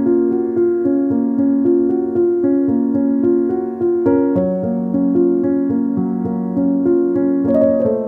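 Background piano music: a keyboard melody of evenly paced notes.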